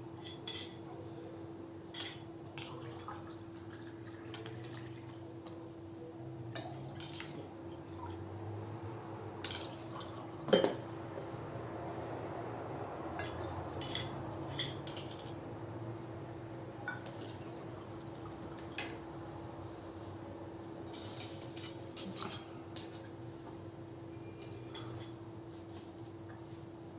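Dishes and cutlery clinking now and then, with one louder knock about ten seconds in, over a steady hum.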